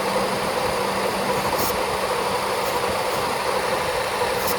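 A car engine idling steadily, with its air conditioning running, while the system is being recharged with refrigerant.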